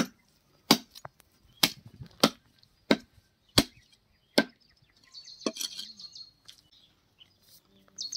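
A heavy cleaver chopping bone-in country chicken on a wooden log chopping block: sharp chops about two every three seconds, seven in the first four and a half seconds and one more a second later, followed by a brief higher-pitched rasping noise.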